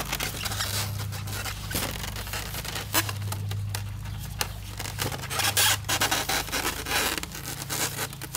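Cardboard box and packaging being handled and opened, with irregular scraping, rustling and clicks, busiest in the second half, over a steady low electrical hum.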